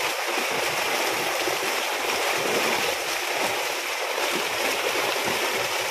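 A crowded catch of large carp thrashing in a hauled-in drag net, churning the shallow water into a steady, dense splashing. It is the sound of fish packed together as the seine is closed during a pond netting.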